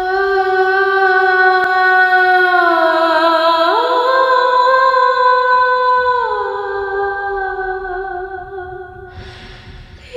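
Long held melodic notes, sung or hummed, that slide slowly down in pitch, leap up about four seconds in and glide back down a couple of seconds later, fading toward the end.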